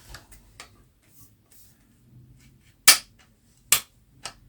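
Benjamin 3600 CO2 air gun's action being worked unloaded, with two sharp metallic clicks a little under a second apart and a softer click near the end.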